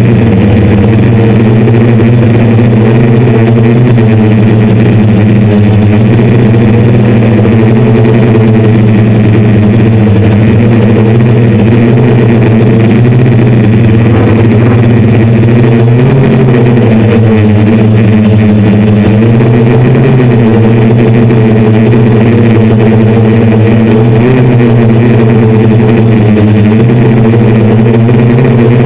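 Six brushless motors and 10-inch propellers of a hexacopter, heard from a camera on the frame, giving a loud steady multi-toned drone whose pitch wavers up and down as the throttle changes.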